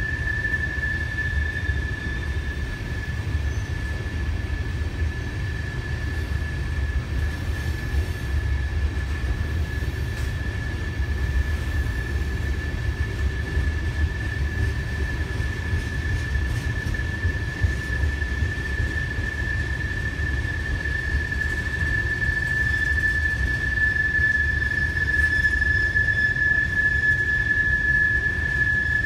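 Passing train's steel wheels squealing against the rail in one steady high-pitched squeal, over the low rumble of the moving cars. The squeal is typical of wheel flanges grinding through a tight curve such as the Horseshoe Curve.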